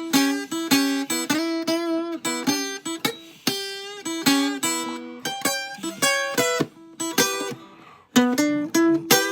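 Guitar playing blues "honker" licks: tritone double-stops plucked in quick repeated strokes, with a few bent notes. There is a short pause about eight seconds in before the playing resumes.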